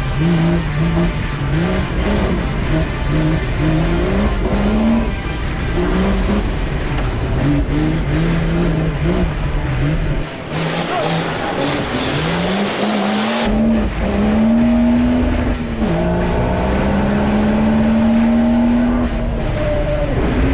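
Off-road car's engine revving hard and pulling up through the gears. Its pitch climbs steadily and drops at each shift, with the longest pulls in the second half.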